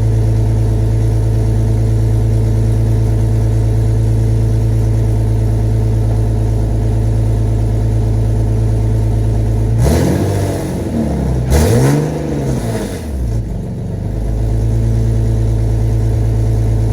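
Car engine idling steadily with its freshly refitted exhaust, revved up and let back down twice about two-thirds of the way through, then settling back to idle. A small exhaust leak is still there.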